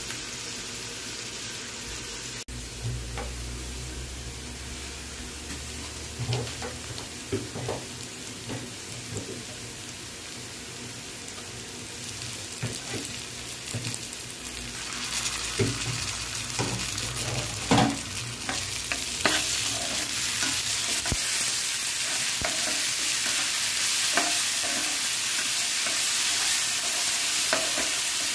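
Chopped onions sizzling in hot oil in a non-stick frying pan, with a slotted spatula scraping and tapping against the pan now and then. The sizzle grows louder about halfway through.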